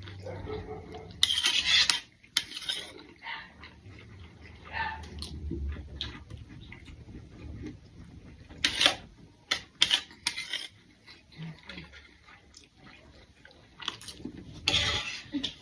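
Cutlery scraping and clattering against plates in several short, loud bursts, with chewing and mouth noises in between.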